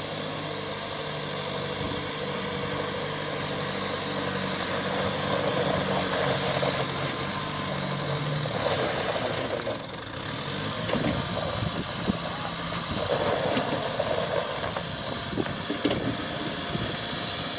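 Kubota MU5501 tractor's diesel engine working hard under load, pulling a loaded trolley hard enough to lift the tractor's front wheels off the ground. The engine note is steady for about the first eight seconds, then turns uneven.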